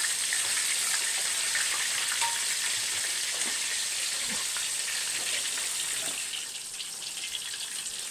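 Flour-coated fish pieces frying in hot oil, a steady sizzle with small crackles that settles slightly quieter about six and a half seconds in.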